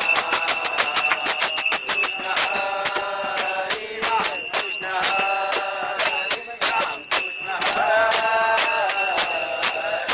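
Commuters singing a devotional bhajan together over fast, even percussion strikes. The beat stops at the very end.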